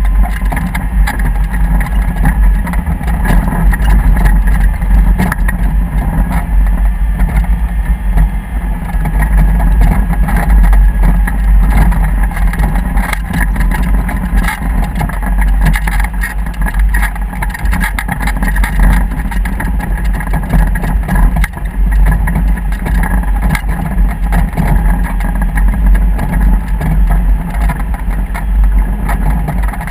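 A vehicle's engine running steadily under way, with a strong, constant low rumble.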